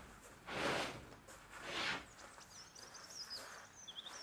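A section of the dive platform scraping across the van's plywood load floor as it is dragged in pulls: two rough scraping sounds about a second apart. After them come faint bird chirps.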